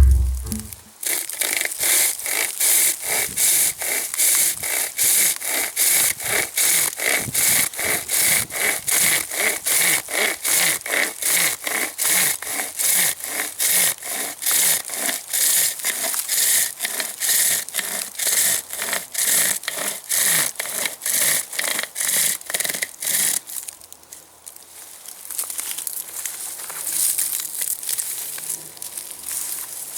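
Pocket chainsaw (a loose chainsaw chain pulled by cord loops) sawing through wood in steady back-and-forth strokes, about two a second. It stops about 23 seconds in, giving way to quieter rustling.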